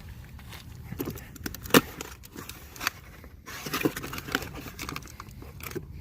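Cardboard boxes and packaging being handled and shifted: scattered knocks, taps and rustles, with one sharp knock just under two seconds in.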